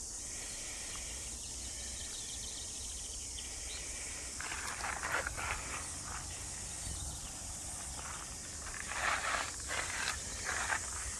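Outdoor ambience by a creek: a steady high-pitched hiss with a low rumble underneath, and a few short rustling, splashy sounds about four and a half and nine seconds in.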